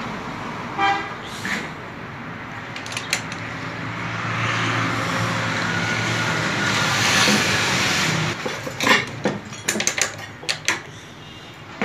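A motor vehicle engine runs close by, getting louder midway and dying away about eight seconds in. It is followed by a run of sharp metallic clicks and knocks from a socket wrench and extension bar working on the engine's cylinder head bolts.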